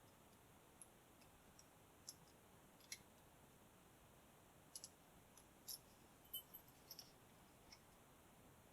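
Faint, irregular small clicks of a lock pick working the pins inside a padlock under light tension, about a dozen scattered ticks with no rhythm.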